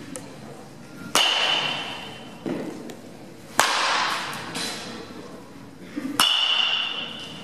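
Baseball bat hitting pitched balls three times, about two and a half seconds apart, the first and last hits with a ringing ping, each echoing in a large indoor hall. Softer thuds come between the hits.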